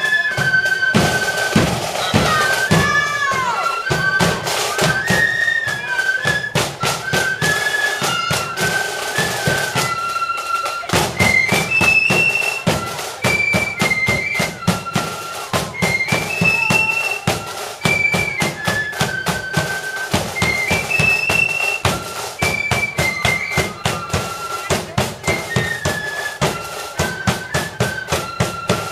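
Marching flute band playing a tune together on high flutes over a steady marching beat of drums, including a bass drum.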